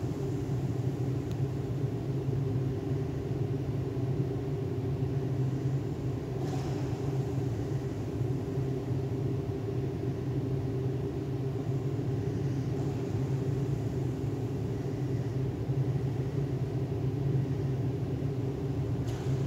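Steady low machinery hum of an indoor pool hall, made of several steady tones at an even level. A faint brief sound comes about six and a half seconds in and again near the end.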